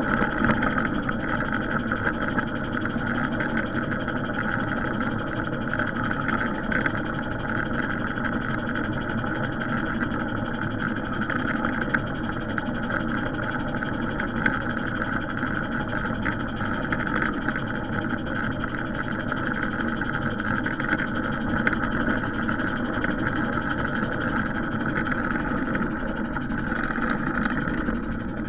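Garden railway train running steadily along the track: a continuous mechanical running noise of the drive and wheels on the rails, with a few faint clicks.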